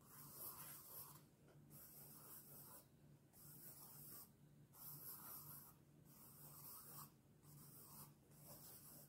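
A sharp pencil drawing light ovals on sketchbook paper: a very faint, soft scratching hiss in even strokes, a little more than one a second.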